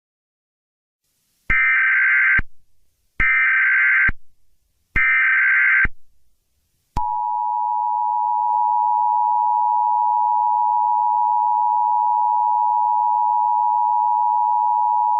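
Emergency Alert System (EAS) alert opening. Three short data-burst header tones come about a second and a half apart, then the steady two-tone attention signal sounds for about eight seconds.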